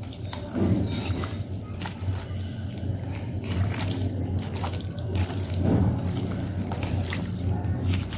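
Hands squishing and kneading raw chicken pieces in yogurt and spice paste in a plastic bowl: irregular wet squelches and smacks, with a steady low hum underneath.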